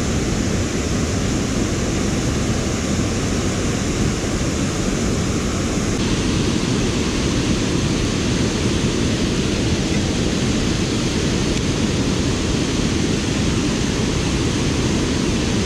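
Water pouring over a concrete dam spillway and churning in the tailwater below: a steady, unbroken rush of noise, changing slightly in tone about six seconds in.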